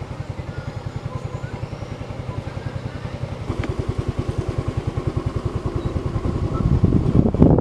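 A motorcycle engine running at low revs with an even chugging beat, about eight a second. It grows louder about three and a half seconds in as the bike moves off slowly, and rougher and louder again near the end.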